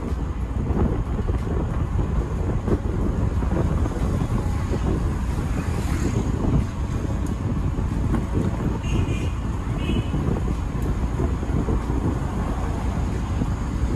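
Steady low rumble of road and traffic noise heard from a vehicle driving along a city street, with two short high beeps about nine and ten seconds in.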